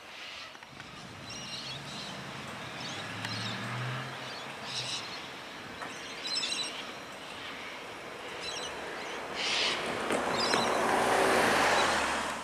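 Road traffic with birds chirping: a vehicle's low engine hum in the first few seconds, then a louder vehicle swelling past near the end, with short bird chirps repeating over it.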